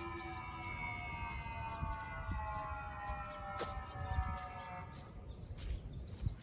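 Outdoor warning siren's alert tone, sounding at reduced power for a monthly test, slowly falling in pitch and fading out about five seconds in.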